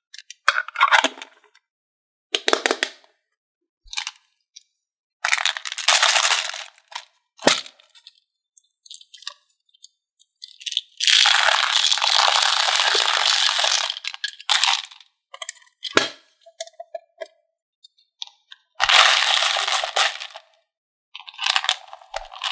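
Small hard-shelled candies (M&M's) poured and clattering in repeated bursts of rattling, the longest lasting about three seconds.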